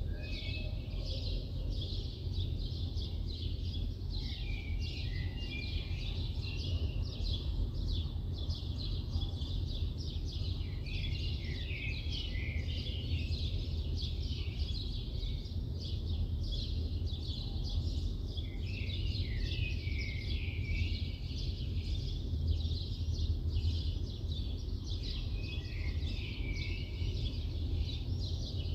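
A chorus of small birds chirping and twittering without a break, with a lower call falling in pitch every six to eight seconds. Beneath it runs the steady low rumble of a city in the early morning.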